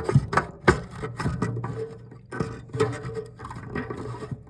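Thermal regulator parts of a Pentair MasterTemp 400 pool heater being forced a quarter turn into place by hand, with a few sharp clicks in the first second and then irregular rubbing and scraping as the stiff fitting is worked round.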